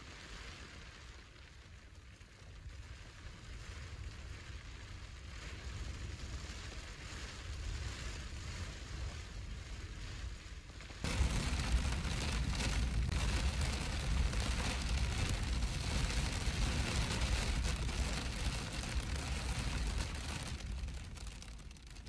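Wind-driven rain against a truck window, heard from inside the vehicle, slowly growing louder. About halfway it switches suddenly to loud, gusting wind buffeting the microphone.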